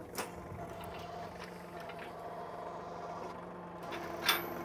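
John Deere 3046R compact tractor's three-cylinder diesel idling steadily. A short click sounds just after the start and a louder sharp clank about four seconds in, from the quick hitch and disc harrow being coupled.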